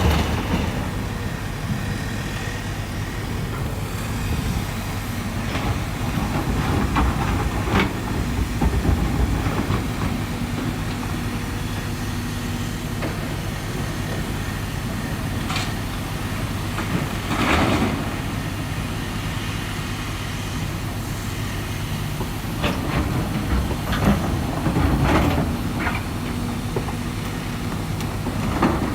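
Hydraulic excavator's diesel engine running steadily while it works, with several sharp metallic clanks and scrapes, the loudest about 17 seconds in and a cluster near the end.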